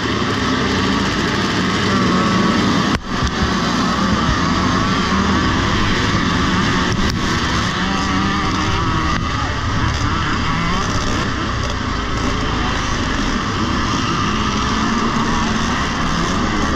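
A pack of vintage motocross bikes revving on the start line, then racing off together at full throttle and climbing. The sound dips briefly about three seconds in.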